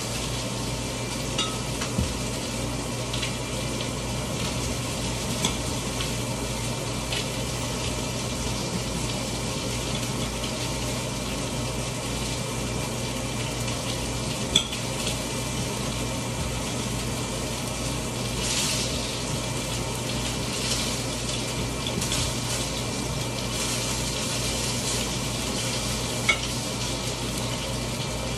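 Food sizzling in a frying pan, a steady hiss under a low hum, with a few light knocks and clinks from work at the counter, the sharpest about halfway through.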